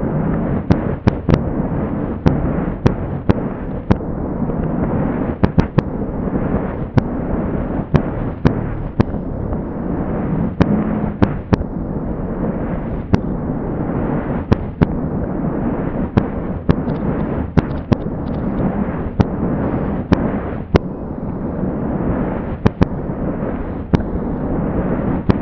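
Fireworks played backwards at quarter speed: a continuous low rumble with sharp cracks one or two a second at irregular intervals, some in quick pairs. The slowing lowers the pitch and cuts off the high end.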